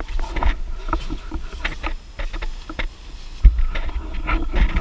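Irregular crinkling and rustling of a nylon tent floor and sleeping bag as a person shifts about on them, with a heavy low thump about three and a half seconds in.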